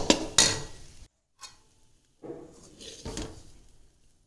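Metal spatula scraping and stirring crumbly egg fry around a metal kadai: a few sharp scrapes at the start, then after a brief break, softer stirring with one clearer scrape.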